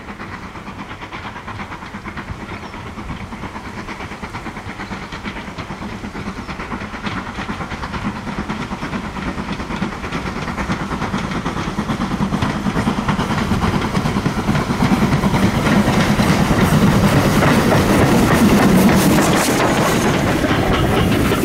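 Stanier 8F 2-8-0 steam locomotive working a passenger train towards the listener, its steam and exhaust growing steadily louder. Near the end it passes close by, with the clatter of coach wheels on the rail joints.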